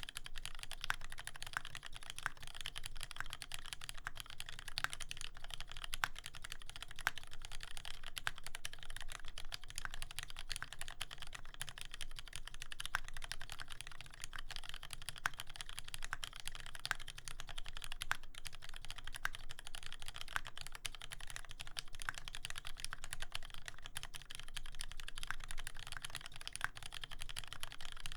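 Continuous typing on a TX84v2 custom mechanical keyboard with a brass plate, lubed Cherry Retooled Black 70 g linear switches and GMK keycaps. The keystrokes come in a dense, steady stream without pauses.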